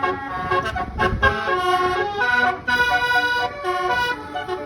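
Bus's multi-tone basuri musical horn playing a loud melody of quickly changing notes, with the rumble of the bus engine swelling about a second in.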